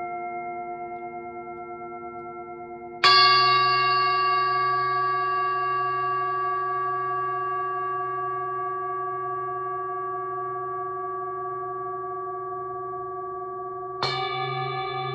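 Singing bowls struck twice, about three seconds in and again near the end, each strike ringing on in a long, slowly fading tone with several overtones that waver.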